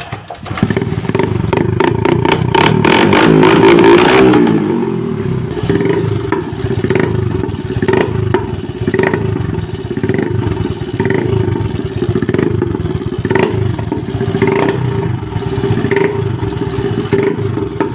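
Motorcycle engine running through a cut-down silencer with its baffle mesh removed. It is revved up about a second in and runs loudest around four seconds, then settles back to a steady run with short crackles about once a second.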